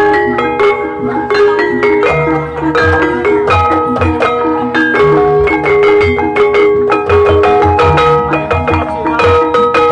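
Live Javanese gamelan playing a continuous piece: ringing metal keyed bars and gong-chime kettles carry a melody of held notes, over a steady pattern of low barrel-drum strokes.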